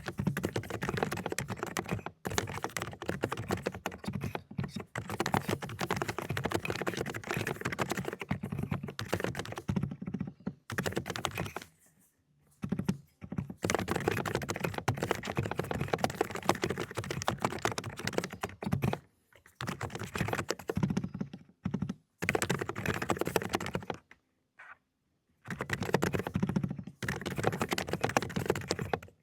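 Fast typing on an AULA 'Dokgeomi' mechanical keyboard with low-noise cotton-candy switches: dense runs of key strokes, broken by a few short pauses, the longest a little under halfway and about five-sixths of the way through.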